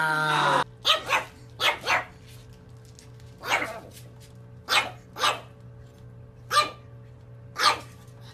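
Pug puppy giving short play barks, mostly in pairs, about ten in all with a second or so between the groups.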